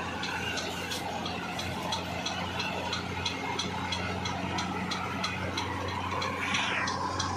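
Tractor diesel engines idling steadily, with a light regular ticking about three times a second.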